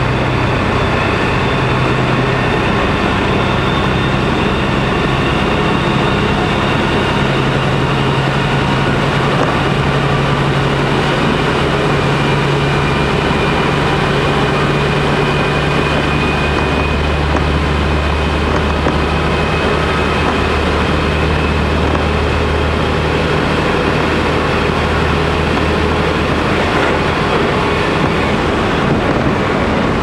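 Inside a KiHa 200 series diesel railcar under way: steady running noise of wheels on rail with the diesel engine's low hum underneath, the hum shifting in pitch a few times as the train's speed or load changes.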